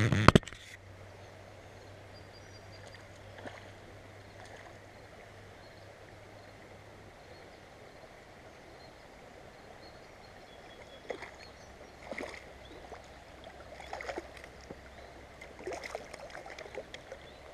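Steady flowing stream water, with a loud clatter in the first half second and several short, sharper sounds over the second half.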